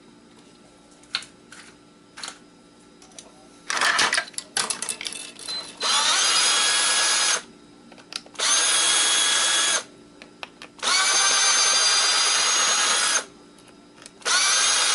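Power drill/driver running in four bursts of about one and a half to two and a half seconds each, a steady high whine, backing out screws. Before the first burst there are a few light clicks and a short clatter.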